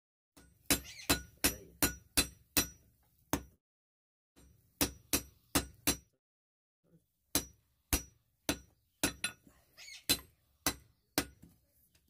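Hand hammers striking red-hot steel on an anvil, each blow a sharp metallic clink with a short ring, about two to three blows a second. The blows come in three runs: about seven, a brief pause, four more, another pause, then about eight.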